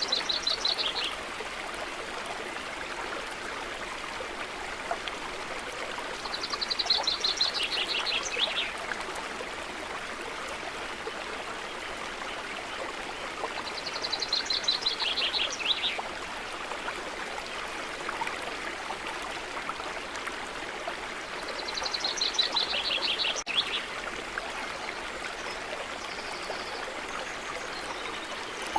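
Stream running steadily, with a bird repeating the same rapid trilling phrase four times, about every seven or eight seconds, each phrase dropping a little in pitch at its end.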